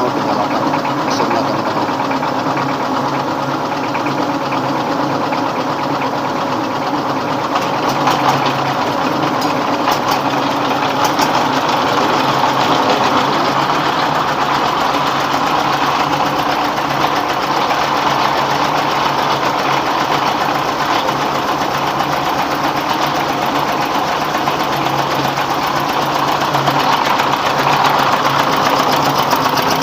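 A 24 hp dompeng (Dongfeng-type) diesel engine running steadily under load, driving rice-milling machinery. The whole mill keeps up a constant loud rattling din.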